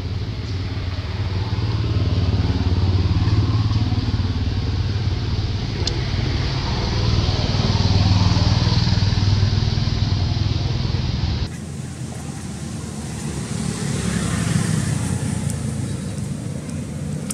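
Steady low engine hum with a haze of background noise; the sound changes abruptly about two-thirds of the way through.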